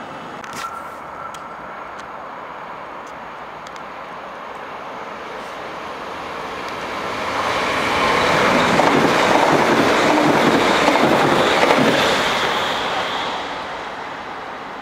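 Double-deck electric passenger train passing through the station at speed. Its wheel and rail noise builds from about halfway, is loudest for about four seconds, then fades as it draws away.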